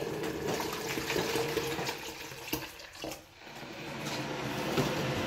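Water running from a kitchen tap into a stainless steel sink, a steady rush that dips briefly about three seconds in, over a faint steady hum.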